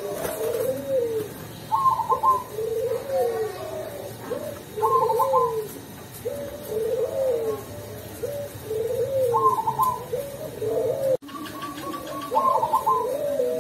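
Cemani zebra dove (perkutut) singing its cooing song over and over: a rising-and-falling coo phrase repeats about once a second, and a short stuttering higher note comes roughly every three to four seconds. The voice is of the kind perkutut keepers call 'ulem', full and mellow. A brief dropout in the sound comes about eleven seconds in.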